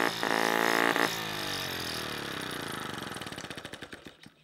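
Small split-cycle two-stroke model engine running steadily, then it stops firing about a second in and coasts down, its pitch falling and its beat slowing until the flywheel spins to a stop near the end.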